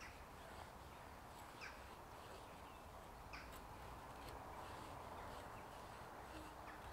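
Faint scrapes of a Glock FM 78 field knife shaving thin curls down a pine stick to make a feather stick, a short stroke every second or so.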